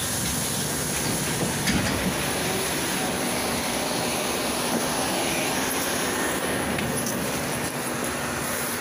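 Steady running drone of a Volgabus 5270G2 city bus, whose Yuchai YC6L280N natural-gas engine hums under an even wash of noise, with a few small clicks.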